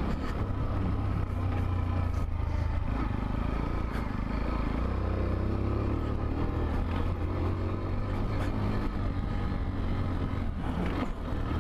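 Macbor Montana XR1 125cc single-cylinder four-stroke engine running steadily while the bike is ridden, its pitch rising and falling a little with the throttle.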